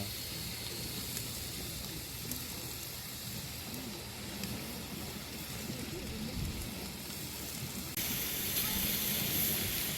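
Pork sizzling on a camping grill: a steady crackling hiss that grows louder and brighter about eight seconds in.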